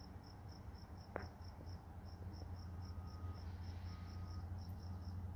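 Faint, high-pitched chirping that repeats about five times a second, like an insect, over a low steady hum.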